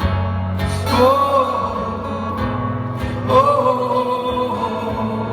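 Live acoustic rock music: strummed acoustic guitar chords, a new chord about every two seconds, over a steady low note, with a voice holding long wordless notes above.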